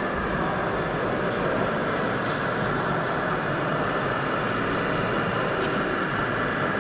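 Steady din of an indoor model-truck hall, with the engine sound of a radio-controlled model truck running under it as a turquoise tractor-trailer manoeuvres. The level stays the same throughout.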